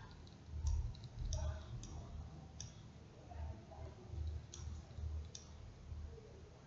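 Computer mouse clicks, about six single clicks at irregular intervals, with faint low mumbling between them.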